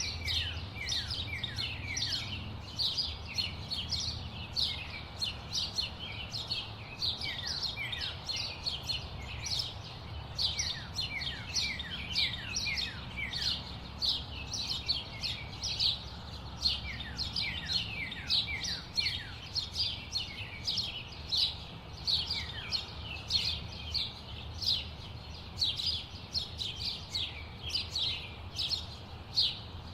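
Many small birds chirping constantly in quick, short, falling notes, over a steady low rumble of city traffic.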